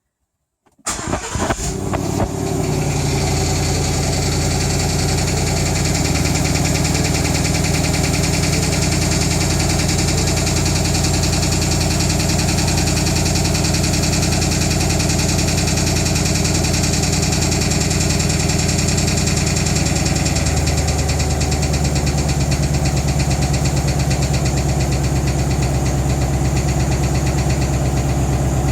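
2016 Ford Mustang engine starting about a second in, then idling steadily; the idle note steps slightly lower about twenty seconds in. The owner hears an odd rattling noise in it, new on a car with only 1500 km.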